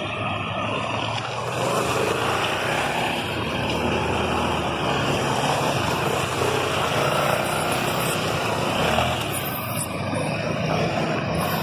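Steady street traffic noise as a police pickup truck and a motorcycle drive past with their engines running.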